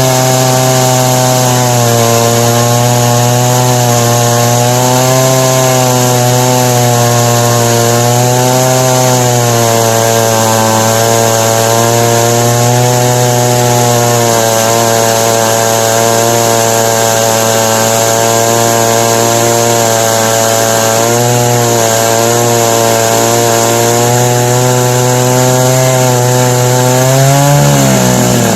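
Jonsered 70E two-stroke chainsaw running at full throttle under load, its pitch wavering as it rips lengthwise through an ash log in a chainsaw mill. The engine speeds up near the end.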